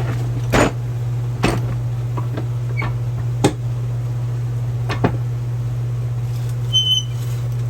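Metal parts of a Sears 3-ton hydraulic floor jack being handled and lifted: four separate clunks and knocks, then a short high squeak near the end, over a steady low hum.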